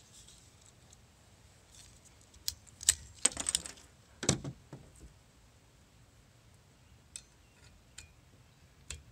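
Plastic clicks and rattles of a windshield wiper blade being worked off a J-hook wiper arm, with a cluster of sharp clicks about three to four seconds in, then a few light ticks as the new blade is handled.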